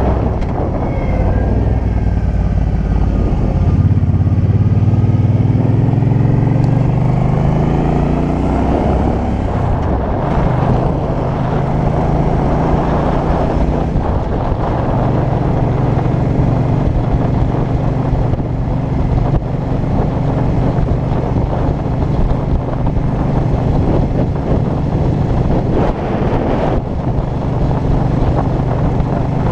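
Suzuki Boulevard C50's 805 cc V-twin engine heard from the rider's helmet while riding: it accelerates with its pitch rising over the first several seconds, then settles to a steady cruise. Heavy wind noise rushes over the helmet-mounted camera's open skeleton housing throughout.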